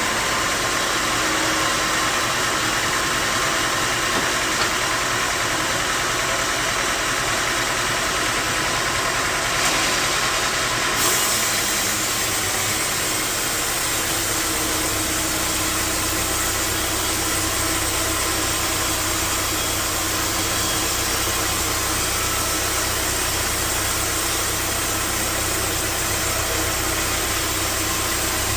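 Sawmill machinery running steadily with a dense mechanical noise; about halfway through, a low steady hum comes in underneath.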